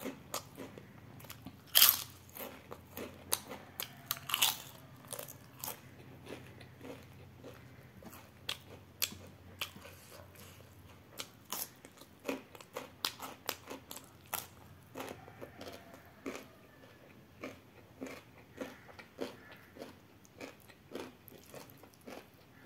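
Close-up crunching and chewing of crispy fried papad. Two sharp, loud crunches come about two and four seconds in, followed by a long run of smaller crunches and mouth clicks.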